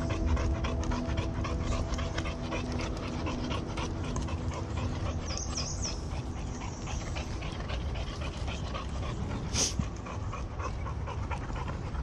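A dog panting hard, in quick, even breaths close to the microphone.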